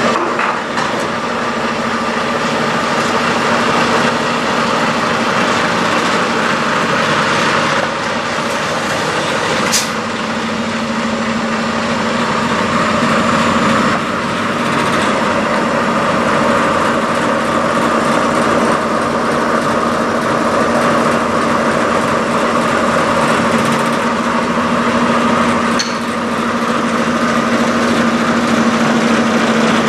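Peterbilt semi truck's diesel engine idling steadily.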